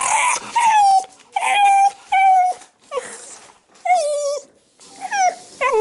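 Shiba Inu whining in about seven short calls, some long and held, some falling in pitch at the end. The dog is begging for food, and its voice is gurgly, which the owner puts down to drool collecting in its throat.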